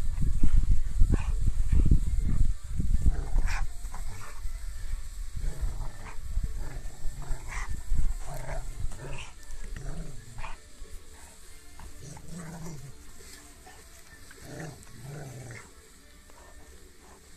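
Rottweiler growling as it tugs a rope toy, with short growls in the second half. Heavy scuffling and knocks dominate the first three seconds.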